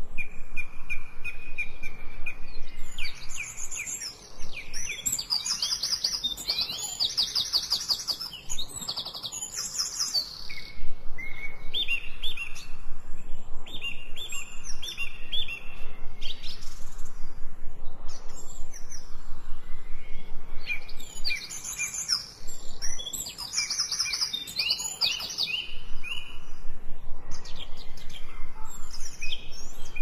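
Several songbirds singing at once: runs of evenly repeated high notes and rapid trills overlapping one another, busiest in two stretches about 5 and 23 seconds in.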